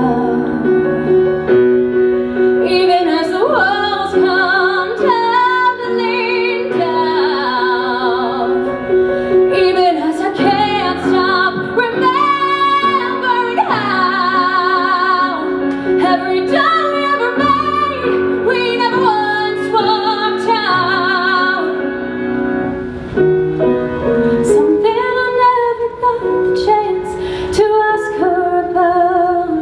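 A woman singing a Broadway musical-theatre song solo, with vibrato on held notes, accompanied by live piano.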